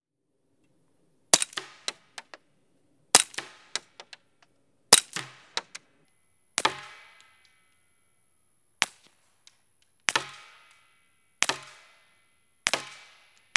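Eight single pistol shots, fired through a CGS Hydra stainless suppressor, spaced about one and a half to two seconds apart. Each sharp report is followed by a few light metallic clicks.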